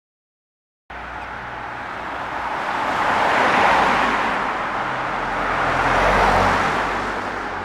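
Two cars passing one after the other, tyre and engine noise cutting in about a second in, swelling to a peak, easing, then swelling to a second peak and fading.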